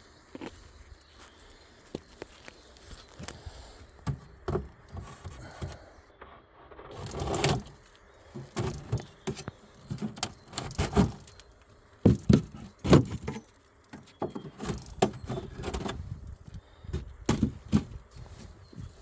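Irregular knocks, clicks and scrapes of wooden beehive frames and boxes being handled, with a longer scrape about seven seconds in.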